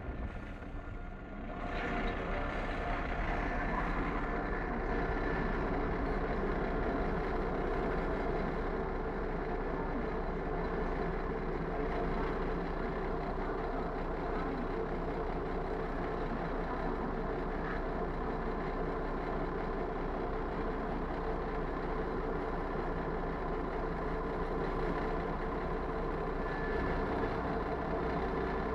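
London Overground Class 172 Turbostar diesel multiple unit standing at the platform with its diesel engines idling. The hum is steady, with several held tones, and grows louder about two seconds in.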